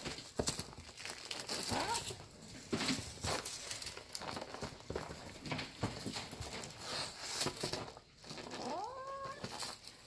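Kittens playing with a feather wand toy: scuffling paws, short taps and the crinkle of the toy's foil streamer. Near the end one kitten meows once, a cry that rises and then holds.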